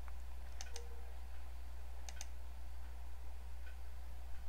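Computer mouse left-button clicks: a close pair about two-thirds of a second in, another just after two seconds and a faint single one near the end, over a steady low hum.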